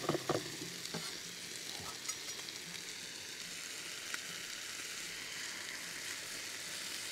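Beef sirloin steaks sizzling steadily in a hot frying pan, after a few knife chops on a wooden cutting board in the first second.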